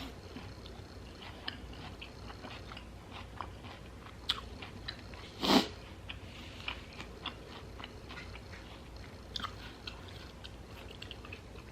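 Close-mic chewing and biting of a carne asada taco in a jicama wrap, with crunching and small wet mouth clicks throughout. One louder, brief sound comes about five and a half seconds in.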